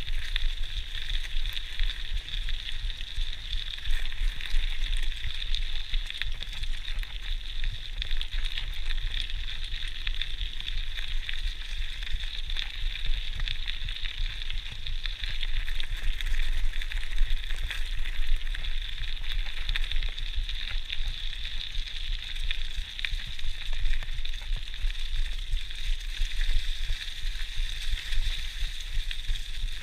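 GT Outpost Trail mountain bike rolling along a woodland track strewn with fallen leaves: a steady crackling hiss of tyres on grit and leaves, with many small clicks and rattles and a low rumble, as picked up by a chest-mounted GoPro.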